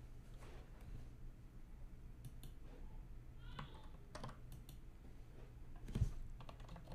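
Computer keyboard typing and mouse clicks, a scattered handful of key presses, over a steady low hum. A single louder low thump comes about six seconds in.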